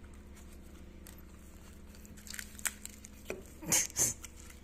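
Corgis gnawing on a lichen-covered stick of firewood: bark cracking and tearing under their teeth in scattered crunches, growing from about two seconds in, with the two loudest close together near the end.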